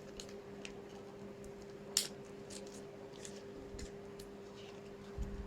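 Hands handling paper and packaging: scattered light clicks and rustles, with one sharper click about two seconds in and a low thump near the end, over a steady low hum.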